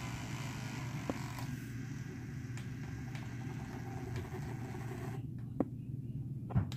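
Electric makeup brush cleaner's small motor spinning a brush held up above the soapy water to spin it dry, a steady whirring hum. A higher hiss over it cuts off about five seconds in, followed by a few light clicks.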